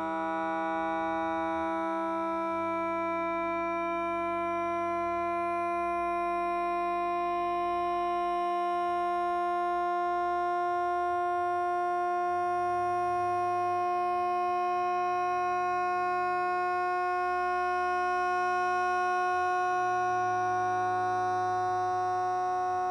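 Carl Wheezer, the cartoon character, holding one long unbroken moan over a croissant he is craving. The moan stays on a single pitch that slowly creeps upward.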